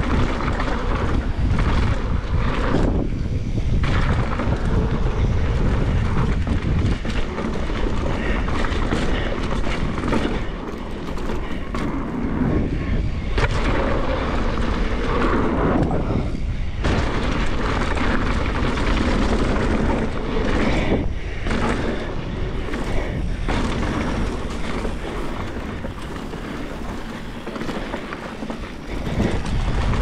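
Wind buffeting the camera microphone and a mountain bike's tyres rumbling over a dry dirt trail at speed, with frequent knocks and rattles as the bike hits bumps.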